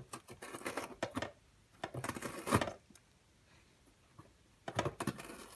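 Cat biting and tearing at the edge of a cardboard box with its teeth: rustling, ripping cardboard in short bouts, with a pause of about two seconds in the middle.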